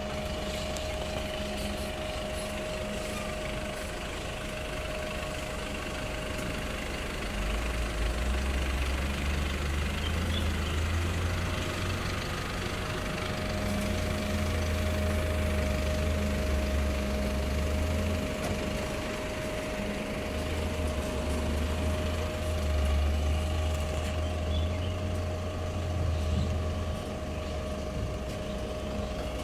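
Isuzu 600P truck's diesel engine running at idle to drive the hydraulic aerial boom, with a steady whine over it. The engine grows louder about eight seconds in and again after twenty seconds, as the boom is worked, then eases back.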